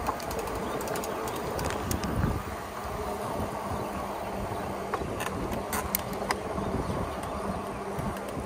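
An e-bike rolling along with the steady buzzing hum of its electric motor over tyre and wind noise. A few sharp clicks come a little past halfway.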